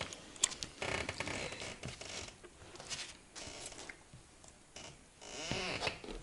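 Siberian husky licking and nuzzling kittens close up: irregular soft rustling, licking and snuffling with a few small clicks.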